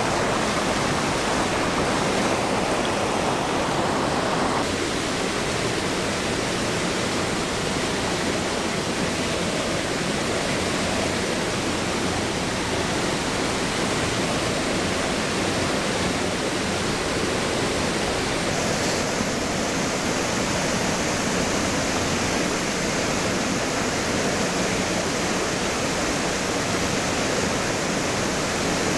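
Small waterfall spilling over a rock ledge into a creek pool: a steady, even rush of falling water, its tone shifting slightly about five seconds in and again about two-thirds of the way through.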